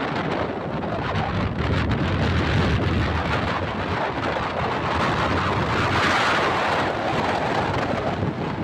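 Wind buffeting the microphone and road rumble from a moving vehicle, a steady loud rushing noise that swells briefly about six seconds in.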